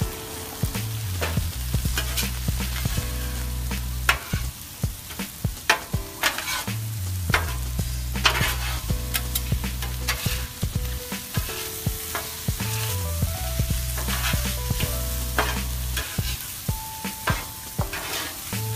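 Food sizzling on a Blackstone flat-top griddle while metal spatulas scrape and clack against the steel, turning and mixing pork strips, Spam and chopped vegetables. Sharp spatula clicks come irregularly over a steady hiss of frying.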